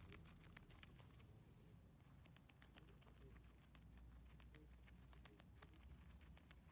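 Faint, quick, irregular clicks of a guinea pig biting and chewing leafy greens, with a short lull about a second in.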